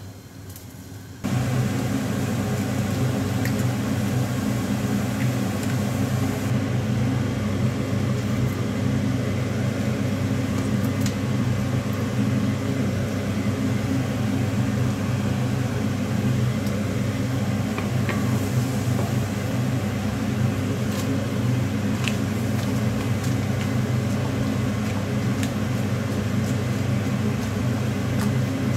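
Steady mechanical hum of a kitchen fan that switches on about a second in, with a few faint scrapes of a wooden spatula against a wok.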